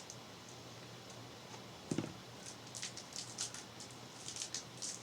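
Pokémon trading cards and booster-pack wrappers being handled: scattered light ticks and rustles, with one louder tap about two seconds in.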